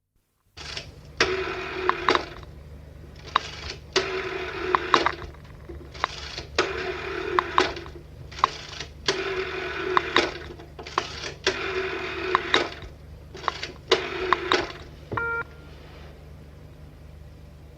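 An old telephone's mechanical bell rings in rattling bursts of about a second each, about six times over a steady low hum. The ringing stops near the end and a short electronic beep follows.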